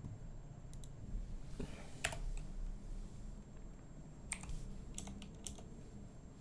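Scattered clicks of a computer keyboard, about half a dozen sharp taps at irregular intervals, the loudest about two seconds in.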